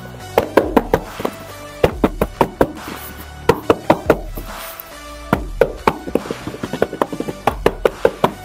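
Background music under irregular clusters of sharp knocks and clicks from hard plastic action figures and their packaging being handled.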